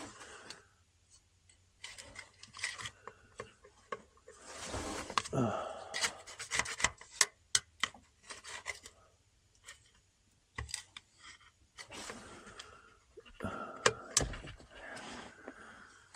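Hand tools and metal parts clicking and scraping in scattered sharp strokes and rubbing spells, with a man's effortful breath sounds in between, while working at the oil strainer cover under a VW flat-four engine.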